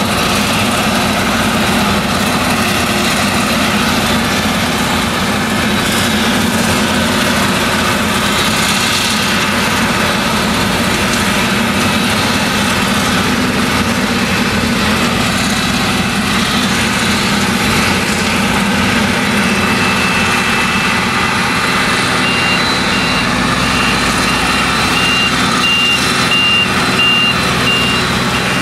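Claas Jaguar 970 forage harvester chopping maize, its MAN V8 engine running steadily under load, with the tractor pulling the trailer alongside. A rapid high beeping starts about three quarters of the way in and keeps on to the end.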